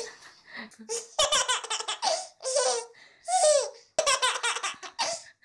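A baby laughing in a string of short bursts, some with a falling pitch.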